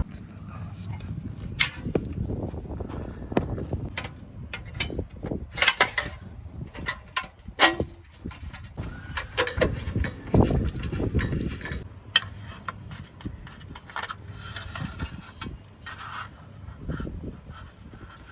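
Irregular clicks, clinks and knocks of hand tools and metal brake parts being handled, over a low rumble.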